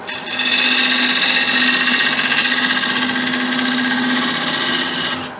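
A bowl gouge cutting the outside of a spinning acacia bowl blank on a wood lathe: a continuous hissing cut of about five seconds that starts and stops sharply, with the lathe's motor hum running steadily underneath.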